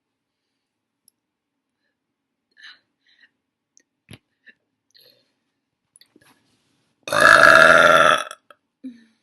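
A woman burps once, loudly, in a single belch lasting just over a second, about seven seconds in. Before it there are only a few faint clicks.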